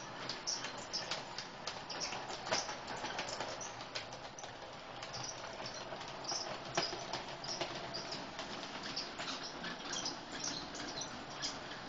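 Model train running on its track: a small diesel locomotive hauling a rake of empty beet wagons, with fast irregular clicking and rattling from the wheels and wagons over a steady low running noise.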